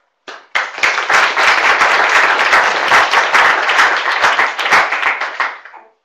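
Audience applauding, starting about half a second in and dying away near the end.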